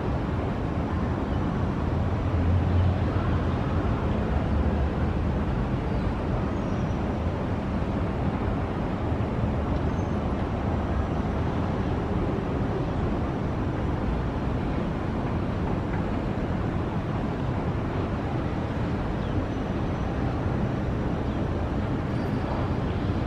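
Steady low rumble of distant city road traffic, even and unbroken.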